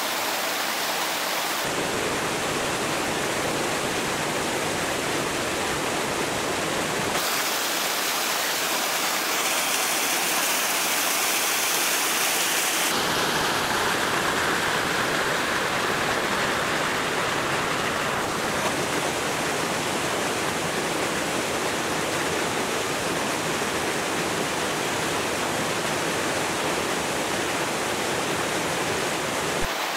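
Rushing rocky stream: a steady rush of flowing water that changes abruptly in tone a few times.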